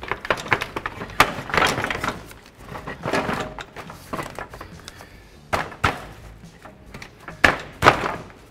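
Hard plastic knocking, clacking and scraping as an electric cooling-fan shroud is worked up against a car radiator. The loudest knocks come near the end.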